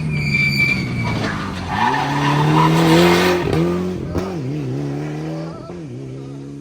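Rally car engine accelerating hard past, its pitch climbing for a couple of seconds, then dipping and picking up again several times before it fades away.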